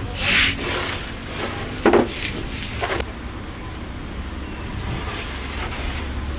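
Workshop handling noises over a steady low hum: a brief rustle, then a loud thump about two seconds in, followed by a couple of sharp clicks.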